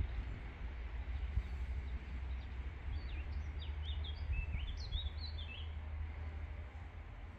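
A small songbird gives a quick run of short, high, down-slurred chirps from about three seconds in to past the middle, over a steady low outdoor rumble.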